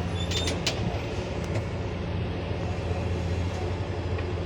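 Heavy diesel engine running steadily with a low, even hum, with a few light clicks in the first second.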